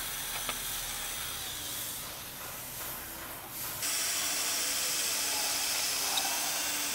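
Cordless drill spinning a P400 sanding disc against a wet plastic headlight lens: a steady motor whir with a hissing scrape as the yellowed, oxidised top layer is sanded off. It gets louder about four seconds in.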